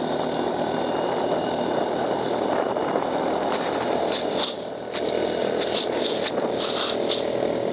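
Off-road buggy engine running as the buggy drives along a paved road, heard from a camera mounted on its frame. The engine noise dips briefly around the middle, and a few short high-pitched squeaks come in the second half.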